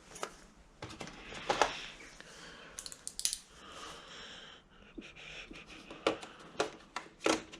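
Scattered clicks, knocks and brief rustles of hand tools being handled while a car battery terminal clamp is loosened.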